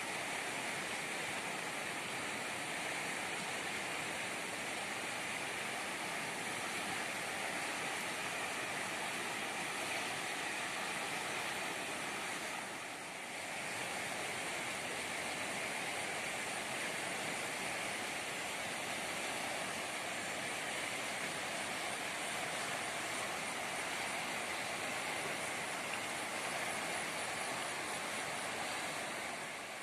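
Steady rushing of a fast-flowing, swollen river carrying muddy floodwater, with a brief lull about halfway through.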